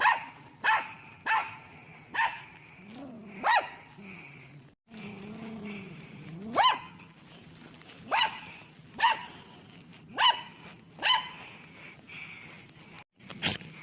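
A dog barking repeatedly in short, single barks about a second apart. A low wavering growl comes between the barks in the middle.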